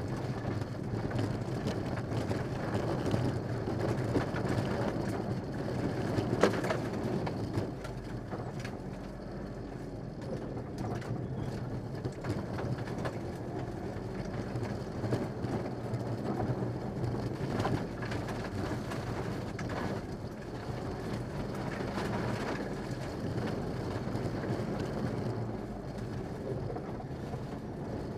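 Mitsubishi Lancer Evolution VI rally car's turbocharged four-cylinder engine running, with road noise, heard from inside the cabin. There is a steady drone and one sharp knock about six seconds in.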